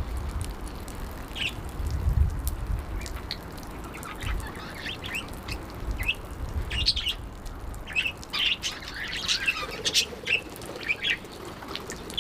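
Budgerigar chirping and chattering in short high calls, sparse at first and busier from about four seconds in. A low rumble sits underneath, strongest in the first couple of seconds.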